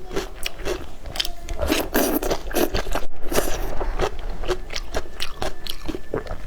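Close-miked eating: crisp bites and crunching with chewing, many short crackles a second.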